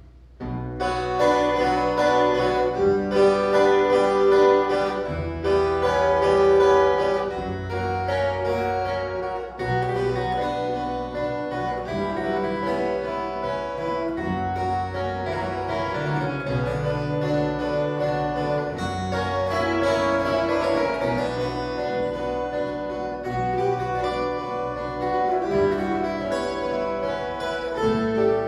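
Viola caipira ensemble playing an instrumental piece: bright plucked steel strings over a moving bass line. It starts abruptly about half a second in after a brief silence.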